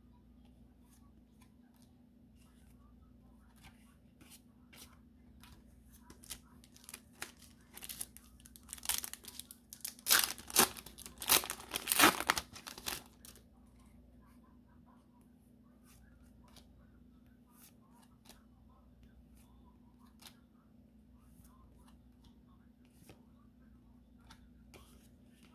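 Foil Pokémon card booster pack crinkling and tearing open by hand. It starts about six seconds in and is loudest, with sharp crackles, around ten to twelve seconds in; a few quieter crinkles and clicks come before and after.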